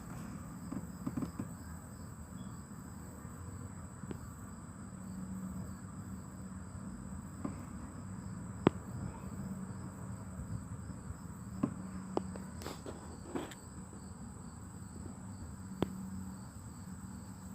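Insects trilling steadily at a high pitch, with a few sharp clicks scattered through, the loudest about nine seconds in.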